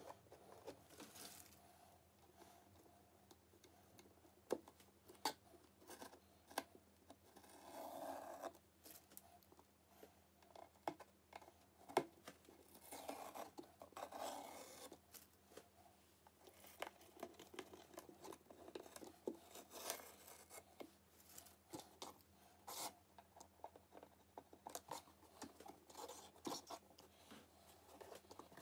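Faint scattered clicks and short scrapes of a craft knife and fingers working on a painted card model, with handling knocks as the model is turned over near the end.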